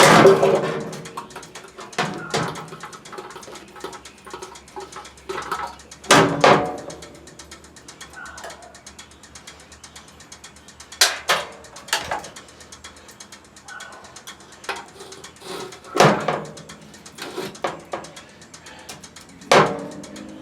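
Irregular metallic clanks and clicks, about a dozen sharp strikes each with a short ring, from hand tools and metal parts being worked on a pressure washer.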